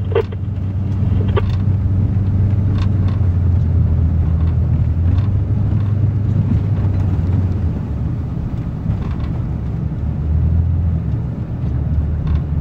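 Ford F350 pickup driving in four-wheel drive through snow, heard from inside the cab: a steady low engine and road drone, with a few faint clicks in the first few seconds.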